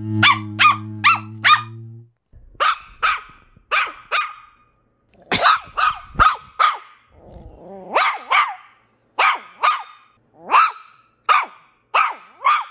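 Chihuahuas yapping: a quick run of five high, sharp barks over a low steady hum in the first two seconds, then more single and paired barks at a slower pace, some ending in a falling yelp.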